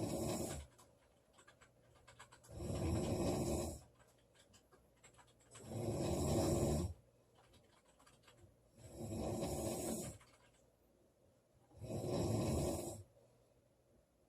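A woman snoring in a steady rhythm. Five rough snores come about three seconds apart, each lasting a little over a second, with quiet breathing between them.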